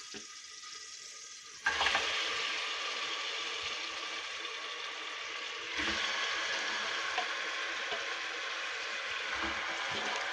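Hot oil in an aluminium pressure cooker sizzling faintly, then frying loudly and suddenly about a second and a half in as raw chicken pieces drop into it. The sizzle stays steady and grows louder again about six seconds in.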